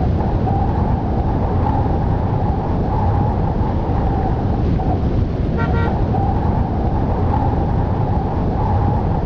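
Steady, loud road traffic noise from passing vehicles, with a short horn toot about six seconds in.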